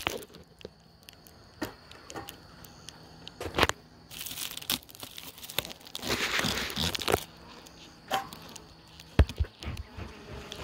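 Crinkling and crackling of the reflective foil covering a wooden beehive lid as it is worked loose by hand, with scattered sharp clicks and cracks and two longer rustling bursts about four and six seconds in.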